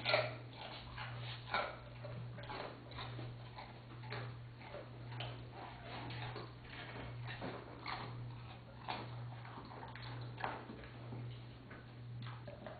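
Doberman Pinscher chewing and licking carrot crumbs off a tile floor: irregular wet clicks and crunches, the sharpest right at the start and about a second and a half in, over a steady low hum.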